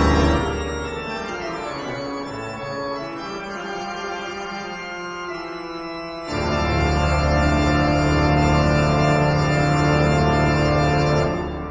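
Background organ music in long held chords: quieter for the first half, then a loud deep chord comes in about six seconds in and holds until it fades near the end.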